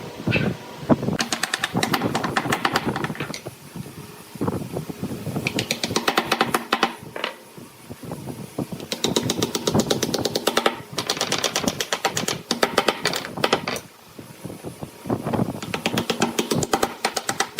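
Gouge cutting a spinning workpiece on a wood lathe: bursts of rapid ticking chatter a second or two long, with quieter stretches between.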